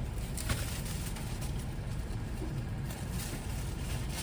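Steady low rumble of an idling car, heard from inside the cabin, with a few faint light clicks.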